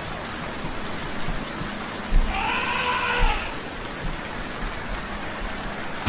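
Steady rain falling, with one animal cry about two seconds in that rises and then falls in pitch over about a second, and low thumps at its start and end.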